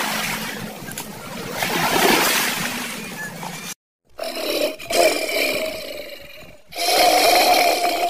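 Animal roars: a long rough roar, then after a short break two long calls on a steady pitch.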